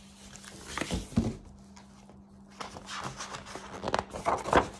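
Paper pages of a picture book rustling and flapping as the book is handled and a page is turned, with a few light knocks, busiest in the second half.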